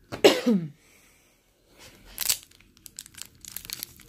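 A trading card pack's wrapper being torn open and crinkled. After a loud rip about two seconds in comes a quick run of crinkling and small tearing sounds.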